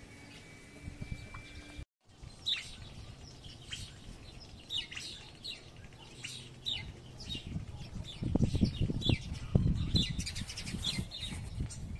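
Birds chirping again and again in short, quick downward-sliding notes, with low thumps in the last few seconds.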